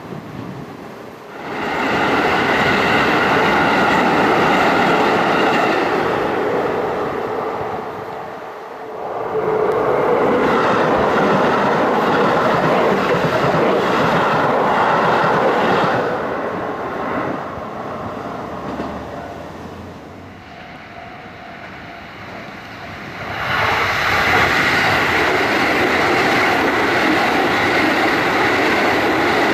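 Keisei Line electric trains passing close by, loud in three stretches with quieter lulls between them, about eight and about twenty seconds in.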